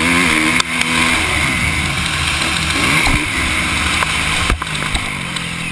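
Kawasaki KX450F single-cylinder four-stroke motocross engine revving up and down as the bike is ridden hard, with rushing wind noise on the helmet-mounted camera. A few sharp knocks stand out, about half a second in and again after four seconds.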